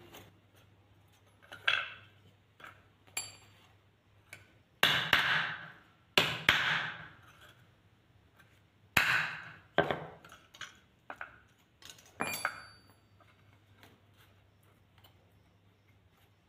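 Hammer striking a small sheet-metal blower fan impeller on a wooden board: about a dozen uneven blows, several with a short metallic ring, the heaviest in the middle.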